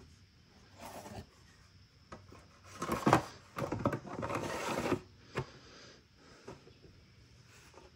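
Handling noises: a knock and a scrape about three seconds in, a couple of seconds of rubbing and shuffling of hard objects, then a sharp click and a few faint ticks.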